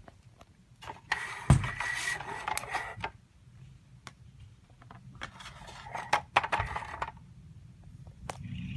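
A plastic toy playset being handled: two stretches of rustling and scraping with scattered clicks, and a knock about a second and a half in.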